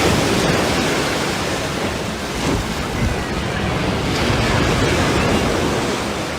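Surf washing onto a beach, a steady rushing noise, with wind blowing on the microphone.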